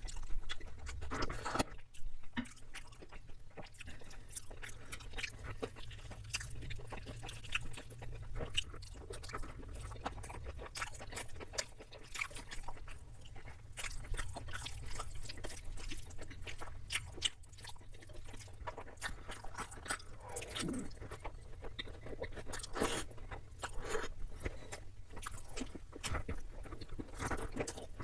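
A person chewing and biting into chicken biryani and mutton curry close to the microphone: a dense, irregular run of short wet mouth clicks throughout.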